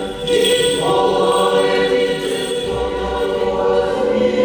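Orthodox church choir singing, several voices holding long sustained chords.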